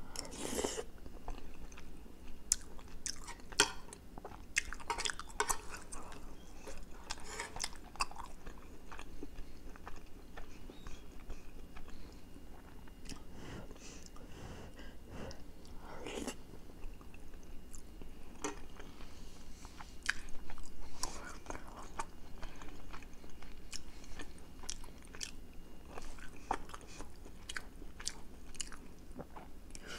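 Close-miked chewing and mouth sounds of a person eating a soft egg omelette with shredded chicken in green chili sauce, with many irregular short clicks from the mouth throughout.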